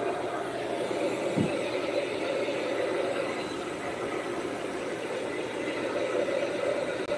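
Handheld hair dryer blowing steadily as wet hair is dried.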